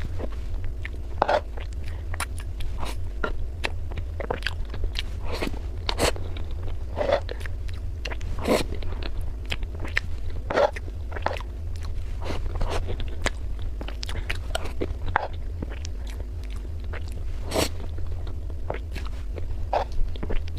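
Close-miked mouth sounds of someone eating chocolate mousse cream cake: chewing with irregular wet smacks and clicks, a few a second, over a steady low hum.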